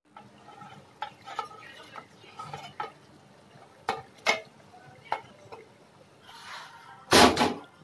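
Steel serving spoon clinking and scraping against an aluminium cooking pot and a steel plate while curry is ladled out, a few sharp clinks spread through, with one much louder clatter near the end.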